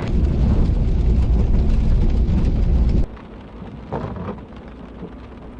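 Rain with a heavy low rumble for about the first three seconds. The rumble cuts off suddenly, leaving softer, steady rain.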